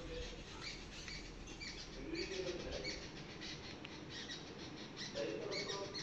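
Birds chirping in short repeated calls, with a low cooing call about two seconds in and again near the end.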